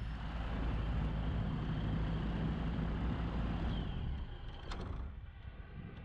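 Kitfox light aircraft's engine idling steadily with the airplane stopped on the ground, fading away near the end.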